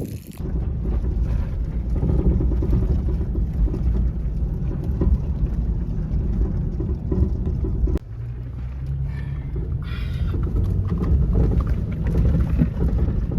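Low, steady rumble of a pickup truck crawling in four-low over rough rocky trail, its engine and tyres mixed with buffeting on the microphone.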